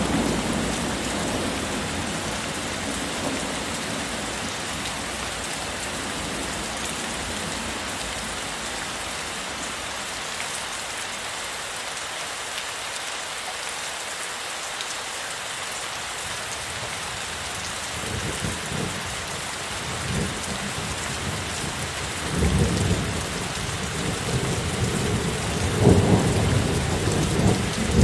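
Heavy rain falling steadily, with thunder. A rumble dies away at the start, and low rolls of thunder come back in the last third, loudest near the end.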